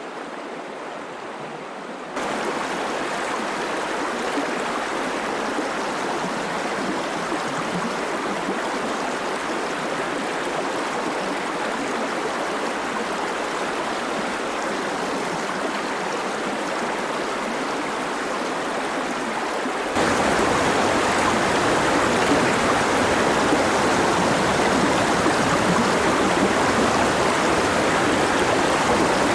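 Flowing stream water, a steady rushing and gurgling. It changes abruptly about two seconds in and again about twenty seconds in, the last stretch louder and fuller with more low rumble.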